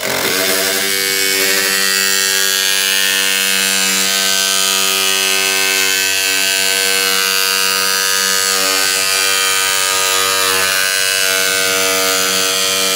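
Makita cordless jigsaw running steadily while cutting a KÖMA ALU aluminium composite sheet: a loud, even buzz of the motor and blade that holds one pitch throughout.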